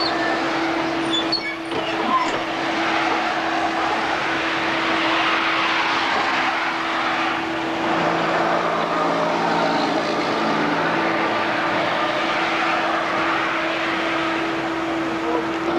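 A diesel engine running steadily, with a single-note hum that fades through the middle stretch and comes back, under the noise of a crowd of passengers moving along the train.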